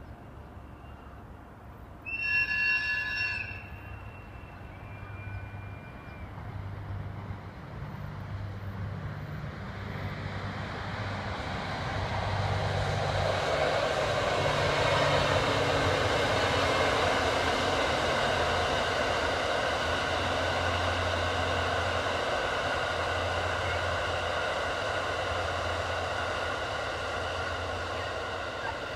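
A train horn sounds one short blast, then the Cassiopeia sleeper train approaches and passes, its rolling noise on the rails building up and holding steady.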